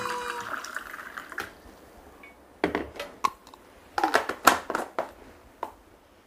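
Water poured from a vacuum flask into a glass, with a string of sharp clinks and knocks as the flask and glass are handled and set down on a table.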